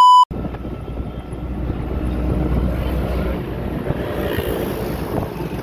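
A short high test-tone beep from a test-pattern transition cuts off about a quarter second in, followed by steady rumbling road and engine noise from a moving vehicle, recorded from inside it.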